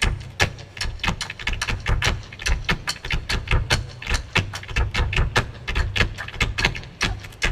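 Rhythmic body percussion from a group of stage performers: fast, sharp claps and slaps in a steady pattern, with low stomping thuds underneath.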